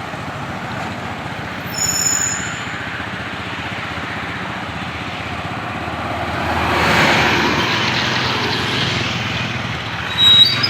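A medium-sized tour bus driving past, its engine and tyre noise swelling to its loudest about seven seconds in. A brief high-pitched squeal sounds about two seconds in.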